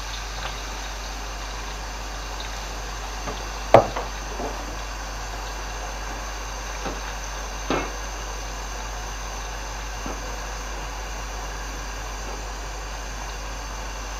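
Eggplant slices deep-frying in hot oil in a metal wok: a steady sizzling hiss, with a few sharp clicks of a wire-mesh skimmer against the wok, the loudest about four seconds in.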